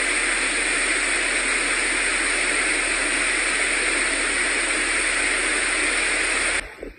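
Floodwater rushing down a street as a fast torrent: a loud, steady roar of water. It cuts off abruptly near the end.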